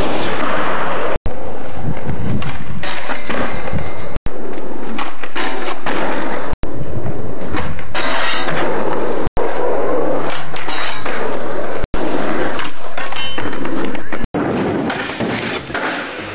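Skateboards rolling and doing tricks on ramps and a metal handrail, very loud throughout, across a run of short clips. The sound cuts out for an instant at each of about six cuts, and near the end it turns quieter and more uneven.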